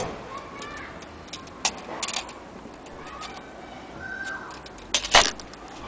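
Irregular clicks and light knocks from handling an antique French mantel clock movement and a steel tape measure laid across its dial, with a louder cluster of clicks near the end.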